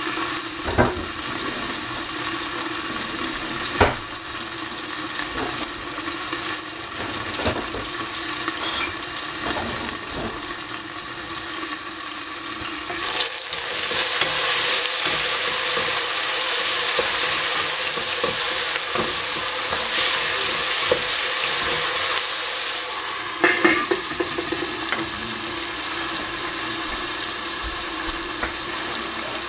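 Pea pods, shiitake mushrooms and onion sizzling in oil in a stainless steel pot, a steady frying hiss. About halfway through the sizzle grows louder for several seconds as a wooden spatula stirs the vegetables in the open pot. There are a few short sharp knocks here and there.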